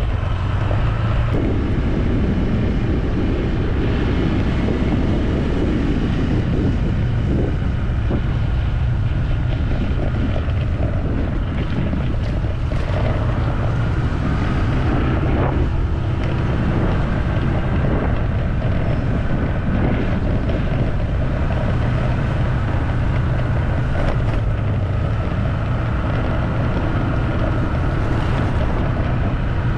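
Vehicle running steadily on the move, a constant low engine drone with road noise, and wind buffeting the microphone.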